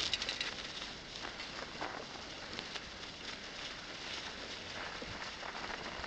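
Bicycle moving over a snow-covered path: a steady hiss of tyres and air with scattered faint clicks and taps.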